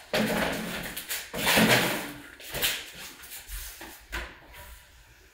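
A plastic stool scraped across the floor in two long pulls, then a few knocks as someone climbs onto it and takes hold of the wardrobe's loft cabinet doors.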